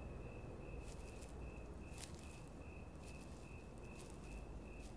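Cricket chirping steadily in a high pulsing trill, about two and a half chirps a second, over a low night-time hiss, with a few sharp ticks scattered through.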